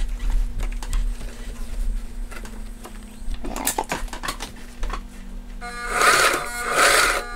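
Sewing machine stitching heavy fabric, its motor humming steadily. About six seconds in a louder, buzzing sound with a steady pitch comes in.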